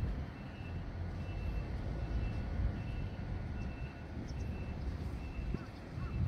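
A truck's reversing alarm beeping faintly, about twice a second, over a steady low outdoor rumble. Near the end a bird starts calling in short repeated notes.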